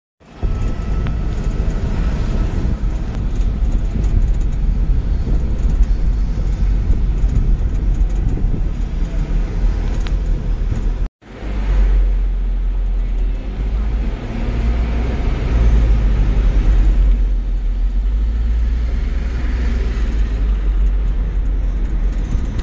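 Steady low rumble of a vehicle in motion, cutting out for a moment about halfway through and fading back in.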